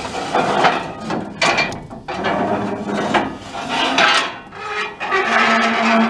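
Folding metal access ladder on a harvester being handled, with a run of irregular scraping and knocking sounds and a brief low screech near the end.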